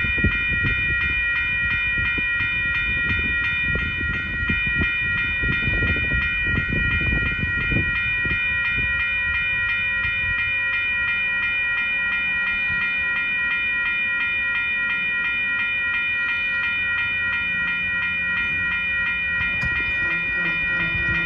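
Railroad grade-crossing warning bell ringing steadily in a fast, even rhythm, set off by a railroad hi-rail truck on the tracks rather than a train. A low rumble sits under it for the first several seconds.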